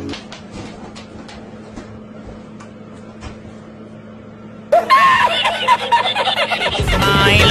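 Faint clicking and a low steady hum, then a loud burst of a voice wavering in pitch about two-thirds of the way in. Music with a beat starts near the end.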